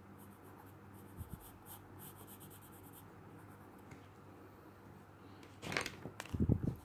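A 2B pencil scratching faintly on textured drawing paper in short light strokes. Near the end there is a louder rustle and a few low knocks as the hand and pencil come off the page.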